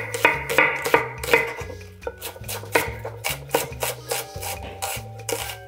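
Chef's knife slicing a red onion into thin julienne strips on a wooden cutting board: a steady run of crisp cuts through the onion and taps on the board, about three a second, over background music.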